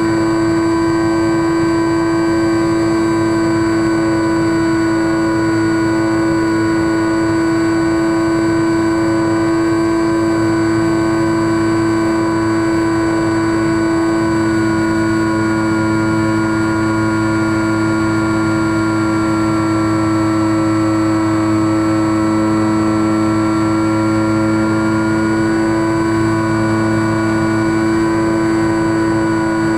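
Brushless electric motor and three-blade 9x6 propeller of a SkyWalker FPV plane in flight, picked up by the onboard camera as a steady drone with wind rush. A higher whine in it dips a little past the middle and comes back up as the throttle shifts.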